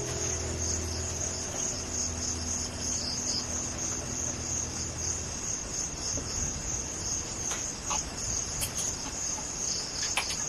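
Insects chirring steadily in a continuous high-pitched chorus, like crickets. A low lingering tone fades away in the first half, and a few faint clicks come near the end.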